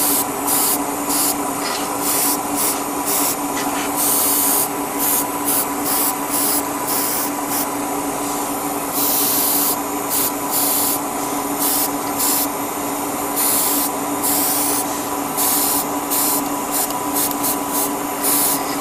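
Airbrush spraying paint in many short hissing bursts, the trigger pulled and released again and again for light passes, over a steady motor hum.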